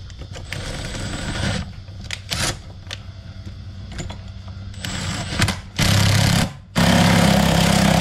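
Power tool run in several bursts, the last two the loudest and longest, working a stuck, rusted part free.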